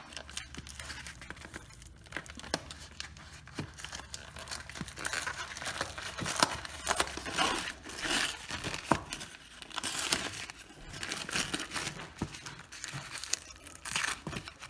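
Paper lid of a frozen ramen bowl being peeled off by its pull tab and then handled. It makes irregular crinkling and tearing with small clicks, busiest about halfway through.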